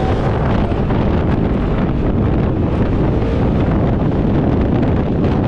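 Loud, steady wind buffeting the microphone over the running engine of a Polaris RZR side-by-side driving across sand.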